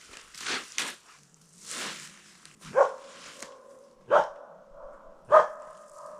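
A dog barking three times, about a second and a half apart, each bark drawn out into a held tone, after a couple of seconds of rustling.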